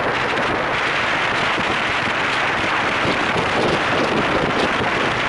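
Steady rushing wind noise on the microphone, with no distinct pitch or breaks.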